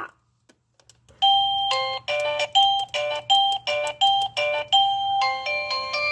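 Electronic doorbell chime playing one of its stored melody tunes: clean synthetic notes in a quick, even repeating figure, starting a little over a second in. The tune shifts to a new phrase near the end.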